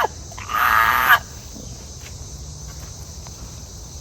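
A single short, drawn-out pitched cry lasting about half a second, starting about half a second in. Steady cricket chirring continues throughout.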